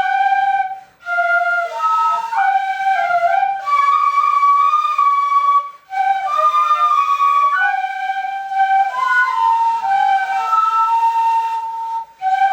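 Ensemble of shinobue (Japanese transverse bamboo flutes) playing a melody in several parts at once, the lines moving in steps. The phrases break off briefly for breath about a second in, near the middle, and just before the end.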